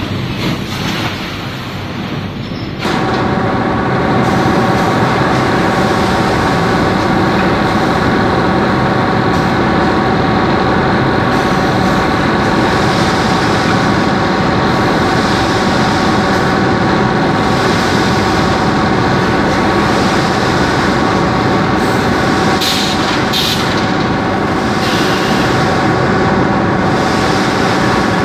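Steady machine drone of an automatic bagging line running, with several steady tones over a dense hum; it starts abruptly about three seconds in after quieter plant noise. A few short bursts of hissing come near the end.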